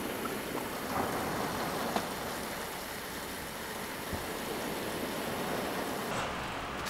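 Steady hiss of a gas camp stove burner with water boiling in the pan under a bamboo steamer, with a couple of light clicks as the steamer is handled.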